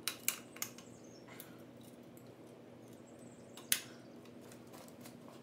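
Small metallic clicks of a compression gauge and its hose fitting being handled and fitted at a spark plug hole of a Continental flathead four-cylinder engine: three quick clicks in the first second and a sharper one a little before four seconds. A steady low hum runs underneath.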